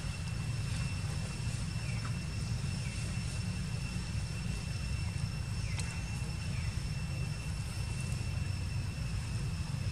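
Steady low outdoor background rumble with a constant thin high-pitched whine over it and a few faint, short falling chirps.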